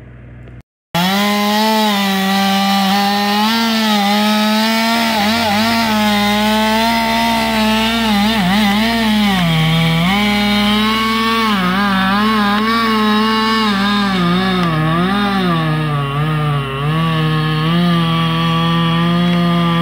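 Husqvarna 550 XP two-stroke chainsaw cutting into a sugar maple at full throttle, starting about a second in. Its pitch sags again and again as the chain bites into the wood, then recovers.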